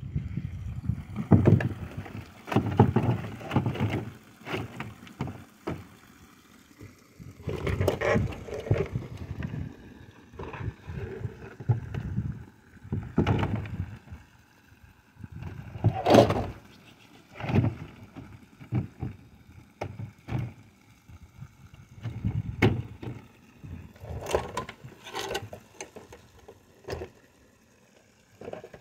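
Wind buffeting the microphone in irregular gusts, with scattered knocks and rattles from stone-coated steel roof panels being handled and set in place.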